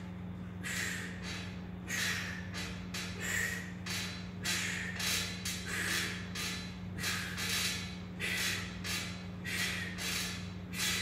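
A man breathing hard through his nose in short, sharp puffs, roughly one or two a second, from the effort of hanging knee raises on a pull-up bar. A steady low hum runs underneath.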